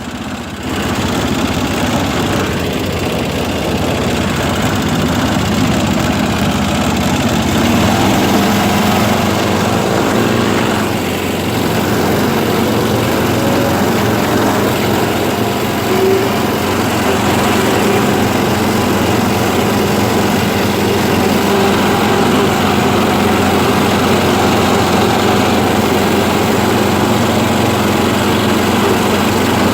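Small off-road vehicle engine running steadily under way, dipping briefly at the start and then holding a constant loud drone.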